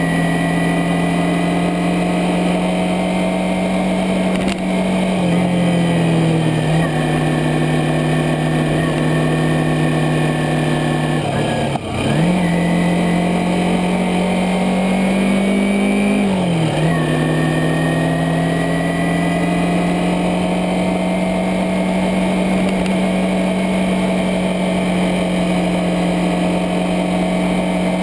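Kawasaki Ninja 250R's parallel-twin engine running under way at fairly steady revs, heard from a bike-mounted camera with steady wind rush. The engine note drops and climbs back a few times as the throttle is eased and gears are changed, most deeply about halfway through.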